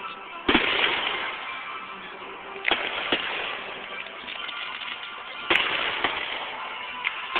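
Aerial fireworks shells bursting with sharp bangs, four main reports a second or two apart, the first the loudest, over music playing throughout.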